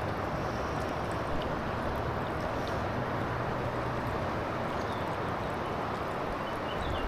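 Steady rush of a shallow river's current flowing over stones, with a few faint light clicks.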